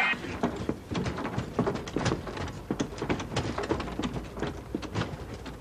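A rapid, irregular series of knocks and clicks.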